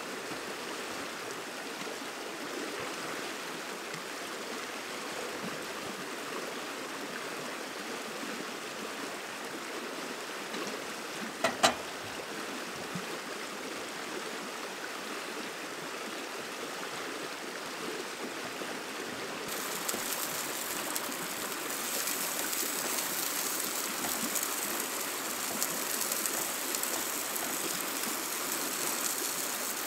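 Stream water rushing steadily, with one sharp double knock a little before halfway. About two-thirds of the way through the rushing gets louder and hissier.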